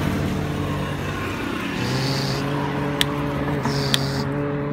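A person imitating a truck engine by mouth: a steady buzzing drone, breaking off briefly once for breath. Two sharp plastic clicks about three and four seconds in come from the toy excavator's arm being worked.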